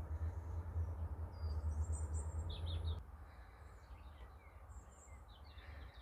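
Small birds chirping with short high calls, over a low rumble that is the loudest sound for the first three seconds and then stops abruptly.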